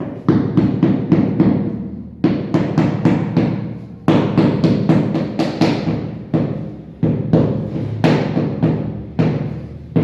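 Rapid rhythmic knocking, about four strikes a second, in runs of about two seconds that each open with a harder hit.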